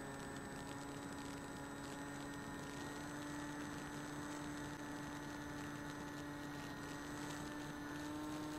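A Bixler 2 model plane's electric motor and propeller running steadily in cruise: a constant hum with overtones.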